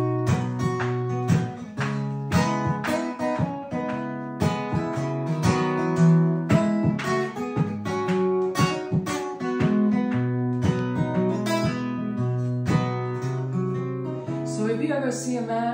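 Two acoustic guitars playing an instrumental passage of a country song together, strumming a steady rhythm of chords.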